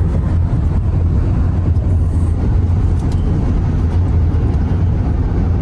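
Steady low road rumble of a moving car.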